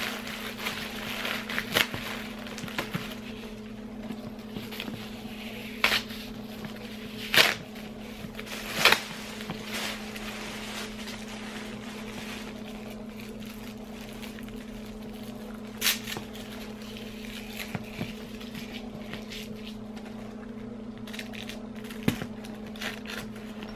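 Paper and plastic wrapping crinkling and rustling as it is handled and pulled off a leather tote bag, with several sharp crinkles, over a steady low hum from the motor of a baby's Rock 'n Play sleeper.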